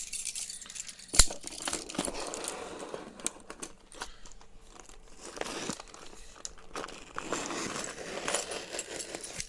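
Cardboard shipping box and its packing being handled: irregular rustling and crinkling with small clicks, and a sharp knock about a second in.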